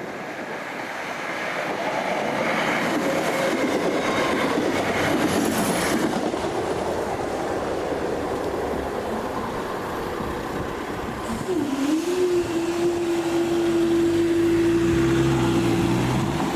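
A passenger train running past over the level crossing, its rumble building about two seconds in and staying loud. A steady droning tone joins about two thirds of the way through.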